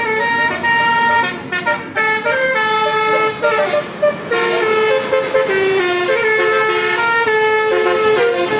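Indonesian 'telolet' multi-tone bus horn playing a melody: a string of held horn notes that step from pitch to pitch every half second or so without a break.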